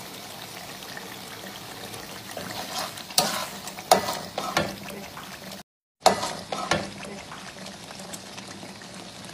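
Red chilli paste frying and sizzling in a pan while a metal slotted spatula stirs it, with several sharp scrapes of the spatula against the pan about three to five seconds in and again around six seconds. The sound cuts out completely for a moment just before six seconds.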